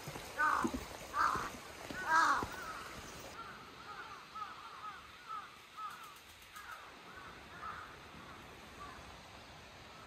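Crows cawing: three loud caws in the first two and a half seconds, then a string of fainter, quicker caws that die away by about nine seconds, over the steady rush of a mountain stream.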